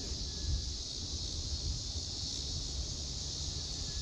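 Steady outdoor insect chorus, an even high-pitched drone, over a low wind rumble on the microphone.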